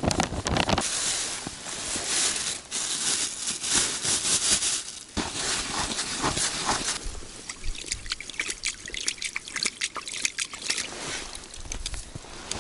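Dry fishing groundbait pouring out of a plastic packet into a fabric bait bowl, a dense hissing trickle of crumbs, then hands stirring and rustling the crumbly mix with crackly ticks from about seven seconds in.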